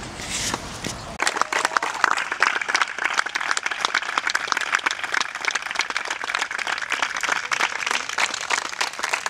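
Audience applauding, the clapping breaking out about a second in and keeping up steadily.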